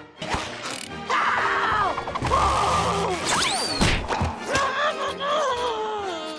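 Cartoon slapstick sound effects over music as a pillow fight knocks a character flat. A noisy scuffle runs from about a second in, a quick whistle-like rise and fall comes about halfway through, and falling tones follow near the end.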